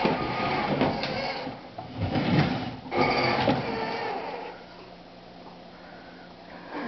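Battery-powered Batman toy ride-on quad driving across a wooden floor: small electric motor whirring, with the plastic wheels rolling. It gets quieter about four seconds in as the quad slows.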